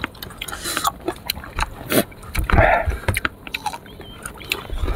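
Close-up eating sounds of a person chewing sour fruit: a run of short crunches and wet mouth clicks, with a louder wet smacking or slurping burst about two and a half seconds in.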